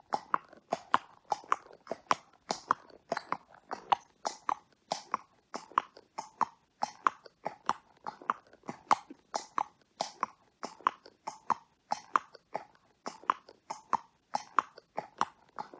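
A thoroughbred horse's hooves clopping on a wet tarmac road at a walk: sharp, regular strikes, several a second, in a steady unbroken rhythm.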